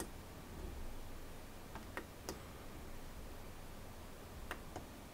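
Faint, sharp clicks from the BenQ ScreenBar Plus desktop control dial being pressed and turned: one at the start, three close together about two seconds in, and a pair near the end.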